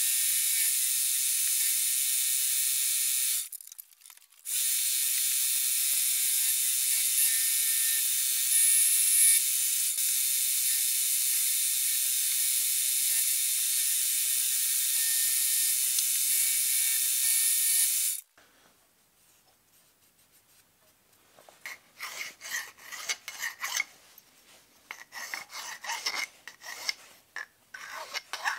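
Milling machine cutting aluminium angle with an end mill: a steady high hiss, broken briefly a few seconds in and stopping abruptly about two-thirds of the way through. After a short quiet, a hand file scrapes along the cut aluminium edge in quick, irregular strokes.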